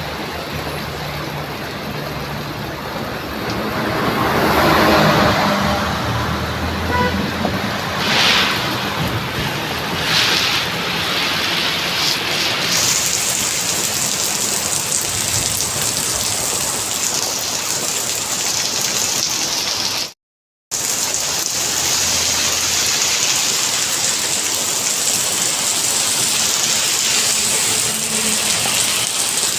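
Steady rain falling on a road, with a vehicle passing about four to six seconds in. The rain turns hissier about halfway through, and the sound drops out for an instant about two-thirds of the way through.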